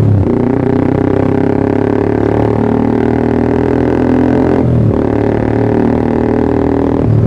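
Yamaha R15 V3's single-cylinder engine running through a Pro Liner TR1 aftermarket exhaust, a steady droning note that dips and swings back up about two-thirds of the way in and again near the end, as with gear changes.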